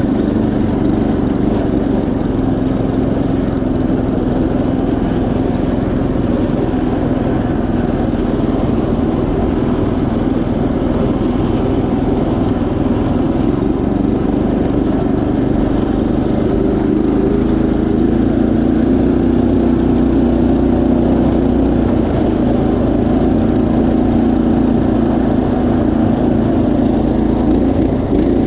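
Predator 212 single-cylinder engine on a Craftsman GT5000 riding mower running steadily under load as the mower is driven along a trail. The engine note rises a little about two-thirds of the way through.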